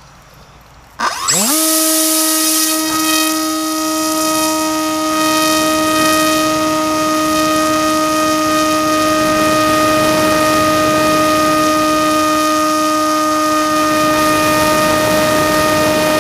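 Small brushless outrunner motor (2200kv) turning a 6x4 propeller spins up about a second in, its pitch rising fast, then holds a steady, loud, high whine at constant throttle.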